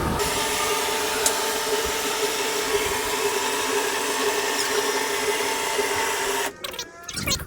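A car lift's electric hydraulic unit running with a steady motor hum and whine, which cuts off abruptly about six and a half seconds in.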